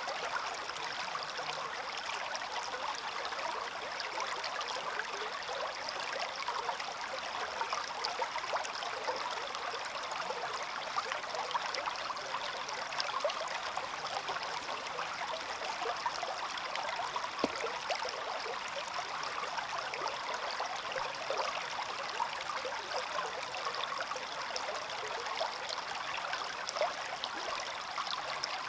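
Small stream flowing over stones, a steady rush of water with constant small splashes and gurgles.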